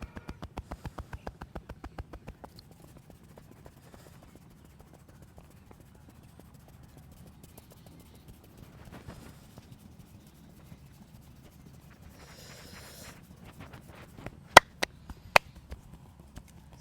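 Rapid, even hand tapping of a percussive massage, about six taps a second, stopping a couple of seconds in; then faint rubbing of hands on skin, and near the end three loud sharp snaps.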